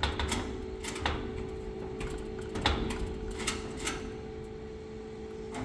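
A series of about eight sharp clicks and knocks at irregular intervals, over a steady low hum.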